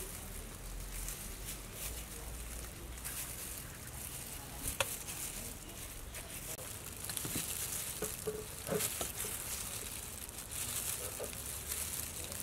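Thin plastic glove crinkling and rustling while a kitchen knife cuts into the skins of Burmese grape fruits, with a sharp click about five seconds in and a few more clicks later. The rustling comes in waves and is busiest in the second half.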